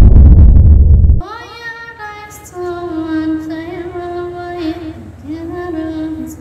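Loud, deep intro music cuts off abruptly about a second in. A high voice then sings slow, long-held notes that bend gently from one pitch to the next.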